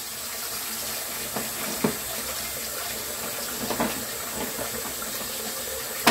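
Bathroom sink tap running steadily, left on to let the water warm up. A few light knocks sound over it, the sharpest one near the end.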